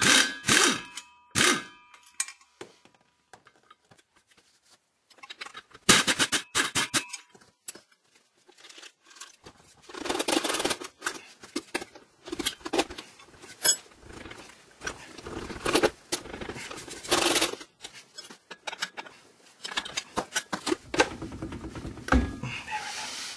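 Metal clinks, knocks and scrapes of hand tools and parts being handled under a car at the transmission, in irregular bursts, with a lull of a few seconds near the start.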